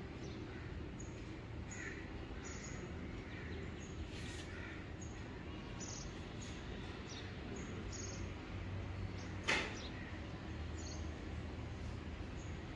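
Birds chirping and calling faintly in short, scattered notes over a steady low hum, with one sharp knock about nine and a half seconds in.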